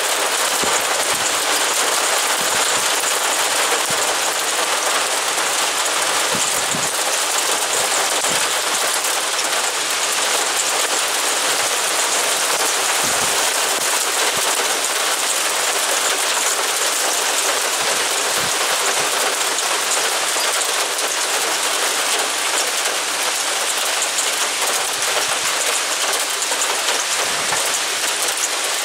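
Heavy rain pouring down: a steady, dense hiss.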